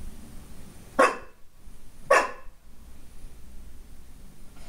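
Golden retriever puppy giving two sharp barks about a second apart: alert barking at his own reflection in a glass door.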